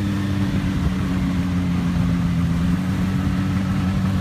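Snowmobile engine running steadily at an even pitch while towing an inflatable banana boat over snow.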